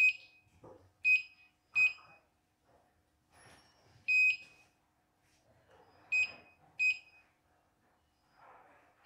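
Control-panel keys of a CNY embroidery machine being pressed, each press answered by a short electronic beep. About seven beeps come at uneven intervals, and the one about four seconds in is held a little longer.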